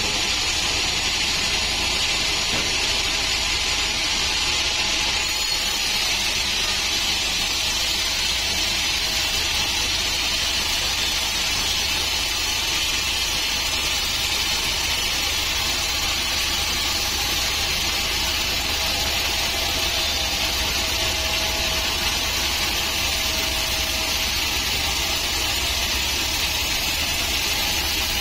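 Sawmill band saw cutting lengthwise through a teak log: a steady, even cutting noise with the low hum of the saw's drive beneath.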